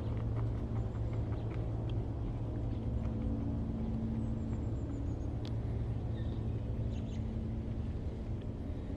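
Steady low rumble with a faint steady hum, and a few short, faint high chirps partway through.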